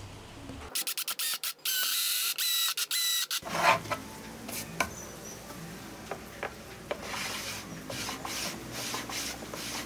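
Cordless drill driving screws through an aluminium T-track runner into an MDF board: a few short stuttering bursts of the motor, then a steady whine for about two seconds. Then a sharp knock and the rubbing and shuffling of the MDF board being handled and set down on a wooden table.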